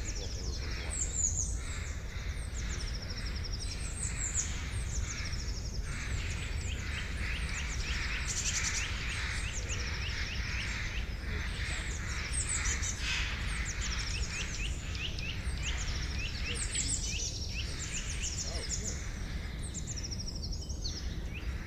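Several forest birds singing and calling together, many short rapid chirps overlapping throughout, busiest in the middle, over a steady low rumble.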